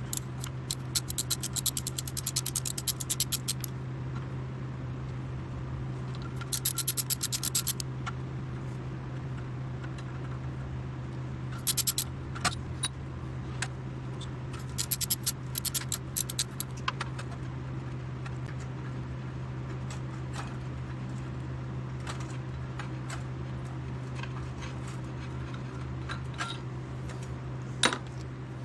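Ratchet wrench clicking in several quick runs as the flex plate bolts are backed out, with a few single metal clicks, over a steady low hum.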